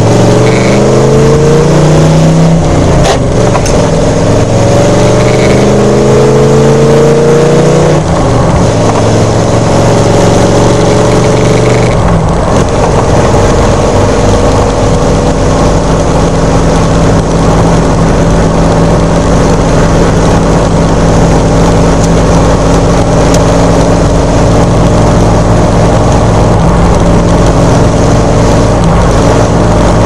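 A 283 small-block Chevy V8 in an S10 pickup, heard from inside the cab while driving: the engine note climbs in pitch under acceleration for several seconds, levels off about eight seconds in, and from about twelve seconds on holds a steady pitch while cruising. The truck has a fuel-delivery problem, which was later traced to a completely clogged screen on the fuel pump.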